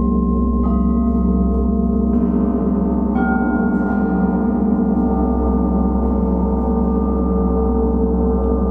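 Planetary gong and singing bowls ringing together in a sustained, slowly beating drone. Fresh struck tones join about a second in and again around two and three seconds in.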